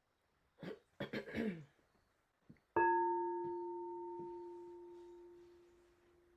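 A person clears her throat, then a singing bowl is struck once about three seconds in. It rings with a steady low tone and several higher tones that slowly fade away.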